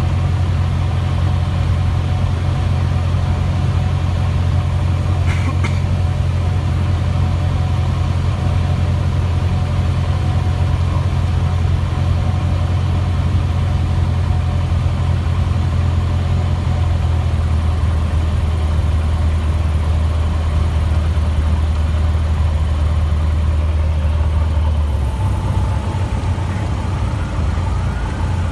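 Cessna 150's Continental O-200 four-cylinder engine and propeller droning steadily, heard inside the cabin on a night approach; about 25 seconds in, the drone changes and drops as the power comes back for the landing.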